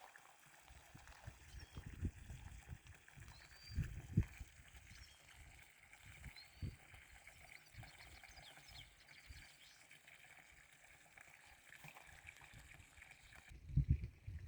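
Faint running water, with a few short bird chirps and irregular low rumbles that grow louder near the end.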